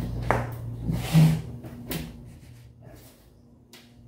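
Plastic bag of peat moss rustling as peat moss is shaken out of it into a wheelbarrow, with a few knocks in the first two seconds, then quieter toward the end.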